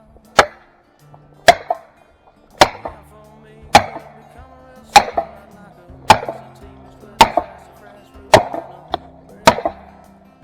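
Felling wedges being driven into a tree's back cut: nine heavy blows about a second apart, some with a quick lighter knock right after, lifting the tree against its hinge. Background music plays underneath.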